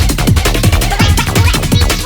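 Electronic rave/jungle track built from 8-bit samples on an Amiga 1200 in OctaMED 4, playing loud: a fast chopped breakbeat over deep bass, with kick drums that drop in pitch.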